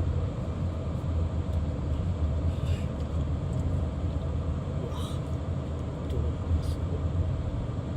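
Steady low rumble of a car being driven, engine and road noise, with three short faint higher-pitched sounds spread through it.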